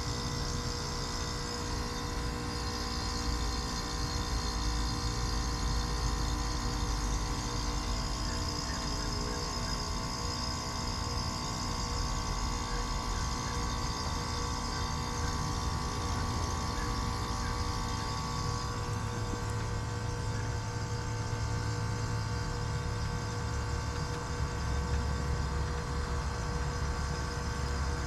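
Lennox Merit heat pump outdoor unit running with a steady hum of several held tones, over a low rumble that rises and falls.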